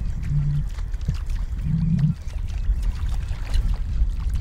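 Water sloshing and lapping over a steady low rumble, with two brief low hums in the first half.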